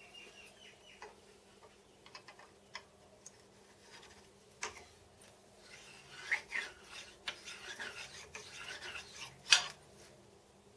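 Metal slide parts rubbed against their mating surface to check contact, with scattered small knocks and clinks, a few seconds of rough rubbing after the halfway point, and one sharp knock near the end.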